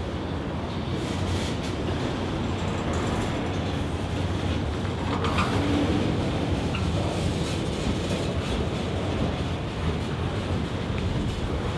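A train rolling past: a steady rumble of wheels on rail, with scattered short clicks and a slight swell in loudness about halfway through.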